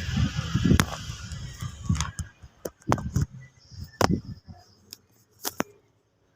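A series of irregular sharp clicks and knocks with low thuds, like small objects being handled and set down, dying away about five and a half seconds in.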